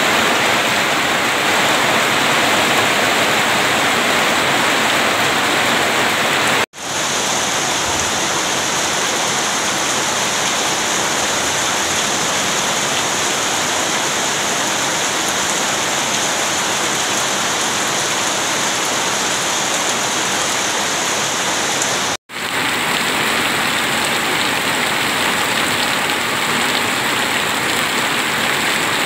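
Heavy rain falling steadily, with water pouring off the roof edge. The sound breaks off for an instant twice, about 7 and 22 seconds in.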